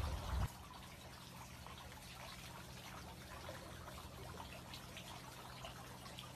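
Faint room tone: a steady low electrical hum under a light crackly hiss, after a brief low rumble in the first half second.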